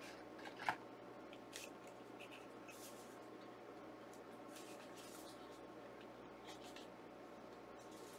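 Faint handling of a Blu-ray disc case and its cardboard slipcover: a soft tap under a second in, then scattered light rustles.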